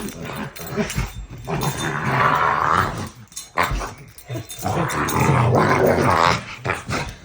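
An American bully dog growling in two long stretches, one about two seconds in and one from about halfway to near the end. The growling sounds like a dog possessed by a demon.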